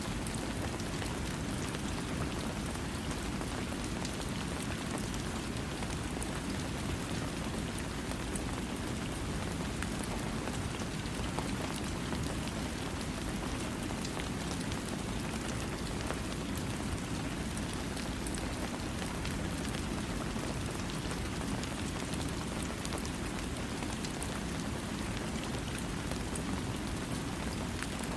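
Steady rain falling on a surface, an even hiss with scattered sharp drop ticks, and no thunder.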